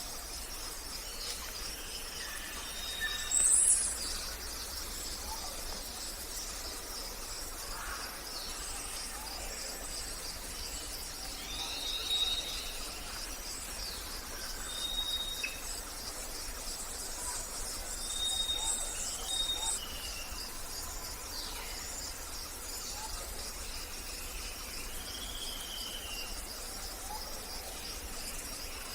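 Forest ambience: a steady, rapidly pulsing insect trill runs throughout, with scattered bird calls over it. The calls are short whistled notes and chirps, the loudest a high call a few seconds in.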